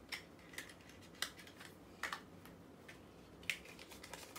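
Hands opening a pink paper envelope and sliding out photo cards in a plastic sleeve: several short, irregularly spaced rustles and clicks of paper and plastic.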